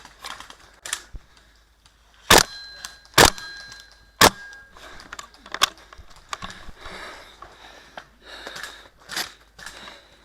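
Three single shots from a WE L85A2 gas blowback airsoft rifle, about a second apart, each a sharp crack of the bolt cycling followed by a brief metallic ring. Softer clicks and rustling of handling come between and after.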